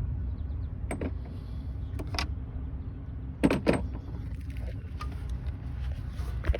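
Scattered metallic clicks and clinks of hand tools at work on the engine, the loudest a quick double clink about three and a half seconds in, over a steady low rumble.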